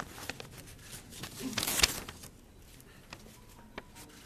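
Paper rustling near the microphones, with a louder rustle about a second and a half in and scattered small clicks and knocks around it.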